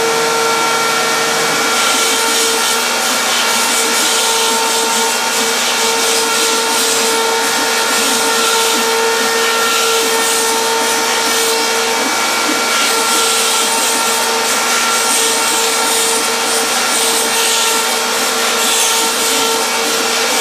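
PhlatPrinter MKII CNC router cutting foam sheet: the spindle motor runs with a steady whine as the bit cuts out RC plane parts.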